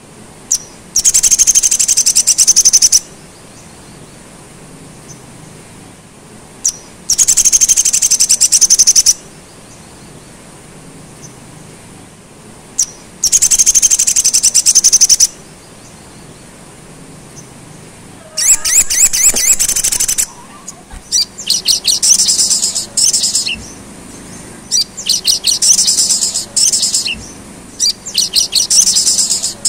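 A caged sunbird (sogon) singing in high, fast trilling phrases about two seconds long, with short pauses between them. About two-thirds of the way through, the phrases change and come closer together.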